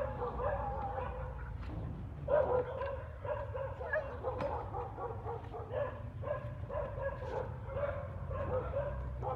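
A dog whining, a high wavering whine that goes on with short breaks, over a steady low rumble.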